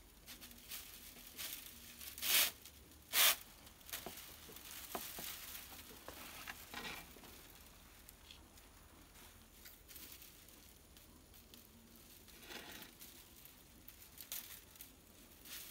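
Coir string being drawn through and pulled tight around a bundle of dry coconut-leaf midribs (ekels) as a broom is bound by hand: short scraping swishes and rustles of rope on the stiff sticks, the two loudest a little after two and three seconds in.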